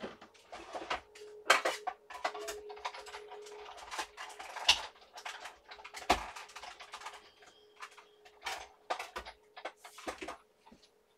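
Irregular off-camera clattering: a string of sharp clicks, knocks and rattles of objects being handled, with a faint steady hum underneath.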